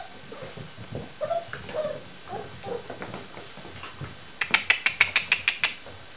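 Six-week-old working cocker spaniel puppies making short high squeaks and grunts as they play. About four seconds in comes a quick run of about ten sharp clicks, roughly seven a second, louder than the puppies.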